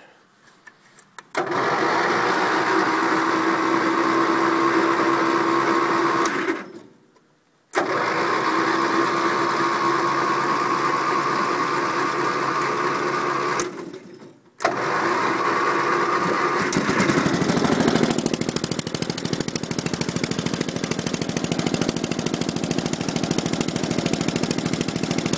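Gravely 8163B garden tractor's electric starter cranking the cold engine in three long tries of about five, six and two seconds with short pauses between. The engine then catches and keeps running with a rapid even beat. This is a hard cold start after weeks unstarted in freezing weather: the hardest it has ever started.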